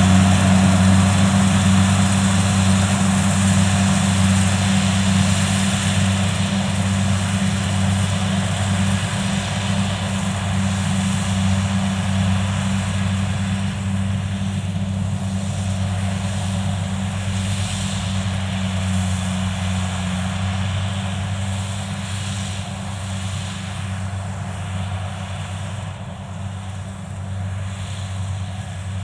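Kubota DC70 Plus combine harvester's diesel engine and threshing machinery running steadily under load while cutting rice. It is a constant low drone that slowly grows fainter.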